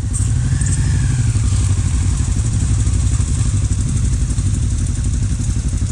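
Kawasaki KLE500's parallel-twin engine running steadily at low revs, close up, as the motorcycle rolls forward at low speed.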